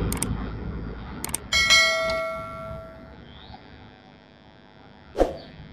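Edited-in subscribe-button sound effect: two quick mouse clicks, then a bright notification-bell ding that rings on and fades over about a second and a half. A single sharp click comes about five seconds in.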